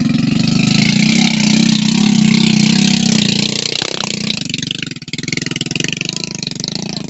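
A small motorcycle engine runs under the weight of a heavy load of corn sacks on a dirt farm track. It is loudest for the first three seconds or so, then eases off, with a brief drop about five seconds in.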